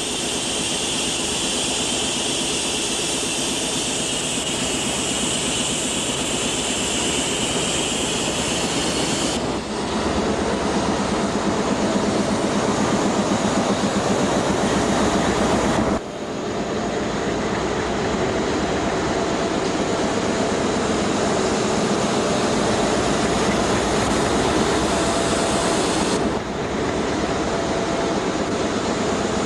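Diesel locomotive running steadily close by: a dense, continuous rumble with hiss. The sound changes abruptly three times, about a third of the way in, halfway, and near the end.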